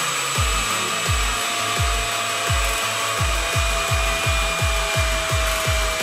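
Steady rushing whine of a homemade electric ducted fan, a 2450KV brushless motor in a hair-dryer shell, running at a constant speed. Over it plays electronic music with a regular, deep kick drum that drops in pitch on each beat.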